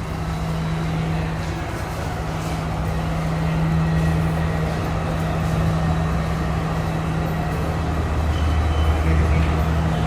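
Diesel train engine idling with a steady low hum, growing slightly stronger near the end.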